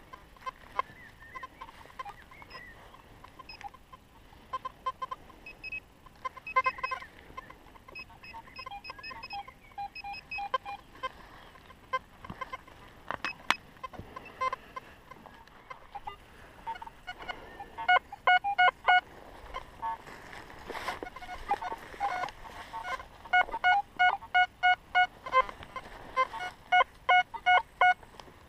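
Metal detector, an XP Deus, sounding target tones: scattered short beeps at varying pitches, then in the second half a run of repeated beeps at one pitch, about two a second, as the coil passes back and forth over a target.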